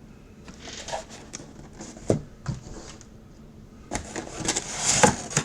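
Boxes being handled and stacked by hand: scattered knocks and scuffs, a couple of sharper knocks about two seconds in, and a busier run of knocks and scraping near the end.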